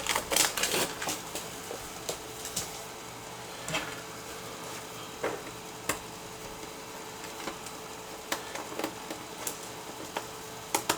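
Small scattered clicks and taps of a screwdriver backing out the screws of a laptop's plastic bottom case, and of the screws being handled. There is a quick cluster of clicks at the start, then single clicks every second or so, over a faint steady hum.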